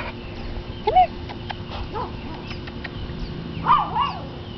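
Schnorkie puppies giving short, high whines and yips, a few single calls with the loudest about three and a half seconds in.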